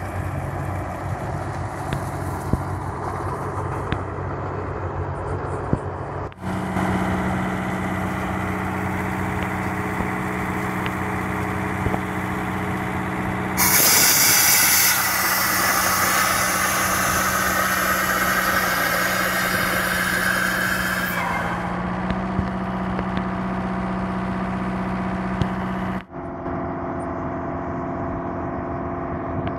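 Truck-mounted water-bore drilling rig running steadily, its engine and air compressor droning, with water and air gushing from the bore's discharge pipe: the bore has struck water at 75 m. A louder rushing hiss comes in about 14 seconds in and eases off about 21 seconds in.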